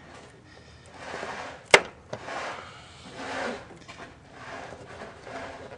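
Rubbing and scuffing from hands working a plastic splash guard against a car's fender, in several swells, with one sharp click that is the loudest sound, a little under two seconds in.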